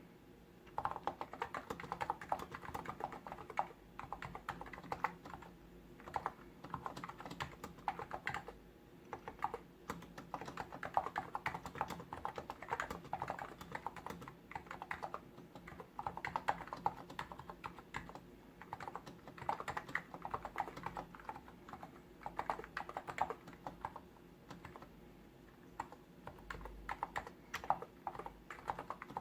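Hansung GTune CHL8 tenkeyless keyboard with contactless electrostatic capacitive switches being typed on, fast runs of keystrokes broken by short pauses every second or two.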